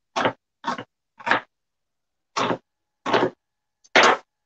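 Kitchen knife chopping a red onion on a wooden cutting board: six separate chops at an uneven pace, the one near the end the loudest.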